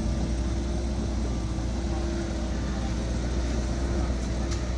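A motor vehicle's engine running steadily, with a constant low hum and no revving.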